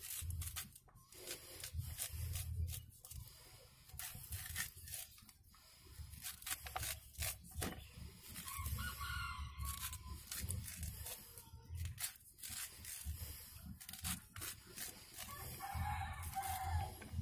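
Kitchen knife repeatedly cutting and scraping kernels off a cooked corn cob into a plastic bowl, in short crisp strokes. A rooster crows twice, about nine seconds in and again near the end.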